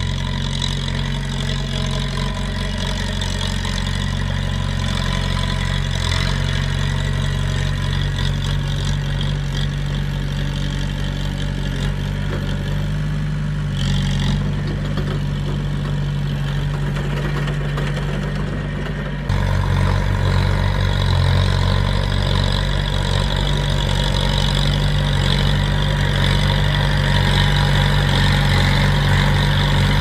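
Heavy diesel engines of bulldozers running steadily at a constant pace. About two-thirds of the way through the sound changes abruptly, becoming louder with a deeper, stronger low rumble.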